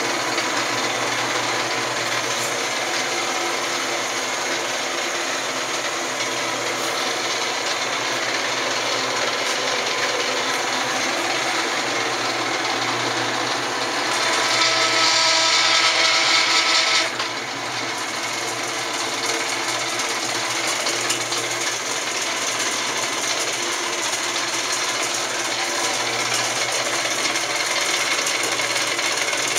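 Lodge & Shipley 14-inch geared-head engine lathe running, with a steady mechanical whine of gears and spindle. About halfway through, a stretch of about three seconds is louder and brighter, then drops back to the steady running sound.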